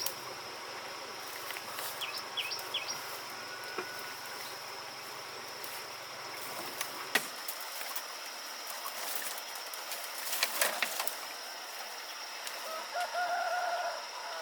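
Rural outdoor ambience: a few short bird chirps, a single sharp knock about halfway, a brief scraping noise, and a short chicken call near the end.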